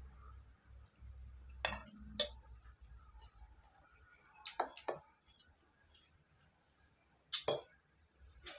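Tableware clinking during a meal: a handful of short sharp clinks of cutlery against dishes, scattered, the loudest pair about three-quarters of the way through.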